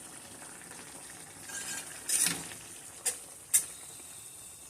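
Cubed beef simmering in its juices in a pan with a faint steady sizzle, and a metal fork knocking against the pan three times, about two and three seconds in, as it pokes through the meat to test its tenderness.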